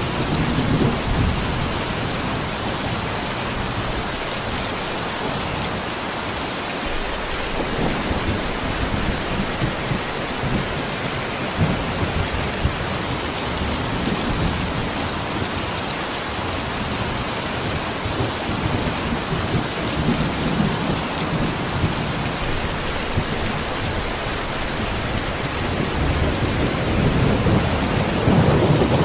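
Heavy summer rain pouring steadily, with low rumbles swelling and fading every few seconds.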